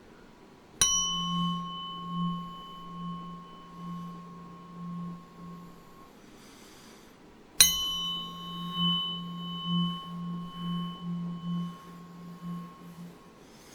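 Tuning fork struck twice, about seven seconds apart. Each strike gives a bright metallic ping, then a low steady hum with fainter higher overtones that swells and fades in loudness as it rings on for several seconds before dying away.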